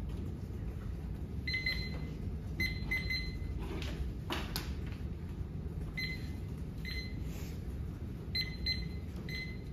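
Electronic timer beeping: short high-pitched beeps, singly and in quick twos and threes at uneven intervals, over a steady low room hum, with one sharp click about halfway through.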